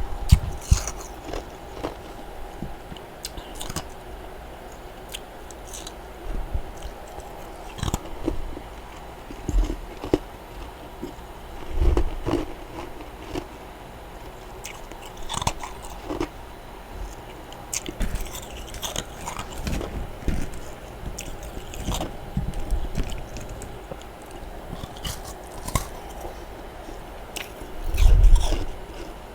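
Close-miked crunching and chewing of powdery freezer frost: irregular crunchy bites and chews, with a louder bite near the end.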